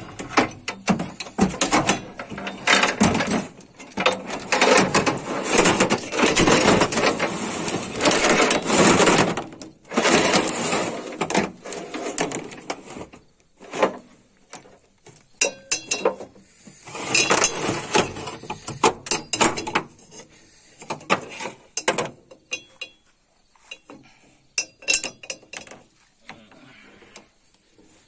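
New steel roller feeder chain of a Bharat combine harvester clanking and rattling as it is fed by hand over the feeder house shafts and sprockets and dragged across the steel floor. Dense rattling for about the first ten seconds, then separate clinks and knocks that thin out toward the end.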